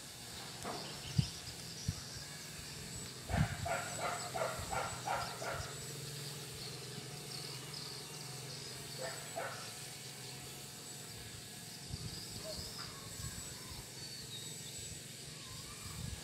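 Animal calls outdoors: a quick run of about eight short calls a few seconds in and a single call about halfway through, over a faint steady hum.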